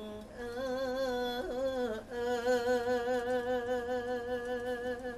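A man singing solo, close-miked, in the drawn-out style of a Thai lae sermon song. He holds long notes with a wide vibrato: one about a second and a half long, then, after a short break about two seconds in, a longer held note.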